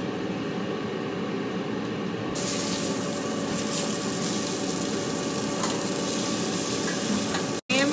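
Beyond Burger plant-based patty sizzling as it fries in a pan, a steady hiss that turns brighter and a little louder about two and a half seconds in.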